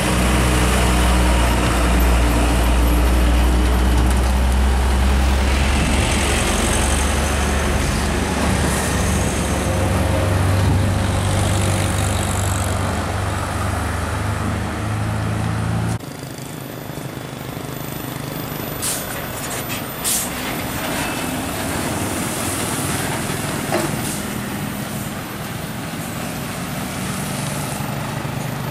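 Heavy diesel truck engines pulling loaded trailers, running deep and steady close by. About halfway through the sound drops abruptly to a quieter truck engine, with a few brief sharp sounds.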